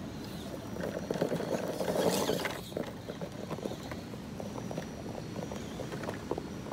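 Radio-controlled rock crawler climbing sandy rock: its sealed, modified tyres scrabble and crunch on sand and stone, with many scattered clicks as it grips and slips. Louder for a stretch about one to two and a half seconds in.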